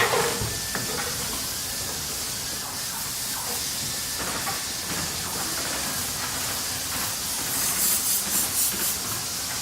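Factory machinery ambience: a constant hissing noise with scattered metallic knocks. One sharp clank rings out at the start, and a quick run of pulsing hiss comes about a second before the end.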